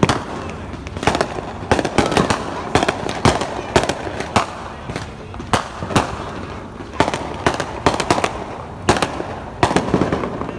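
Fireworks going off: sharp bangs and pops at irregular intervals, sometimes several in quick succession, over a continuous background of further bangs.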